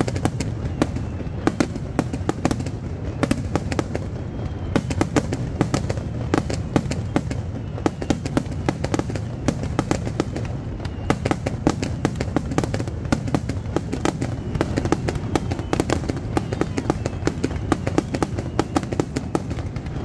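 Fireworks display at its climax: aerial shells bursting in a rapid, unbroken barrage of overlapping bangs and crackles, several a second, over a low rumble.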